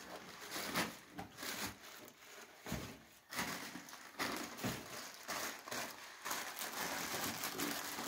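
Plastic courier bag and paper wrapping crinkling and rustling as a package is pulled out and handled, in irregular bursts.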